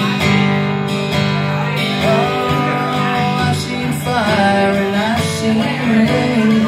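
Two acoustic guitars played together, picking and strumming chords in an instrumental passage between sung lines.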